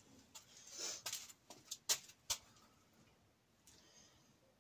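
A few light clicks and taps with some faint rustling, the sharpest about two seconds in: hands moving over the air cleaner and parts in a Ford Cortina's engine bay.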